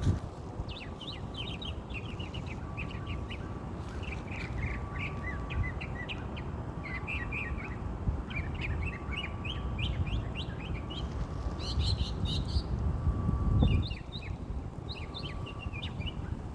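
A songbird singing a long, continuous run of quick, varied chirping phrases, with wind rumbling on the microphone underneath.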